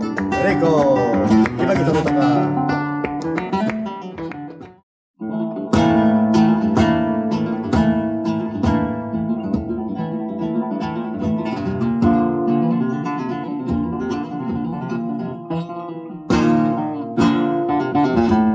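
Flamenco recording from a 1958 LP: the end of an alegrías excerpt cuts off about five seconds in. After a brief silence, a flamenco guitar opens the tarantas with plucked runs and rasgueado strums.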